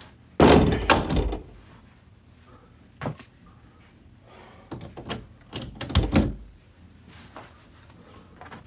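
Several dull thuds and knocks: a burst about half a second in, a single knock near three seconds, and a cluster around five to six seconds.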